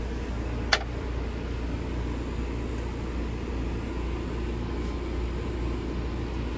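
Steady hum and rush of an RV air conditioner running, with a single sharp click about a second in.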